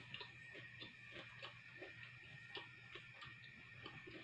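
Faint close-up mouth sounds of someone chewing grilled fish: soft irregular smacks and clicks, several a second, over a steady high-pitched whine.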